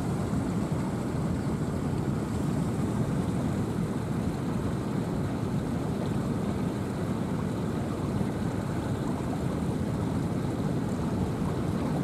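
Steady rush of surf and wind, with wind buffeting the microphone.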